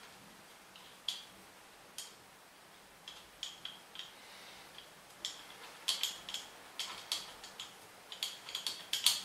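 Light metallic clicks and taps of scooter engine parts being fitted by hand, the cylinder head and then the cam sprocket and timing chain. The clicks are sparse at first and come quicker and more often from about halfway through.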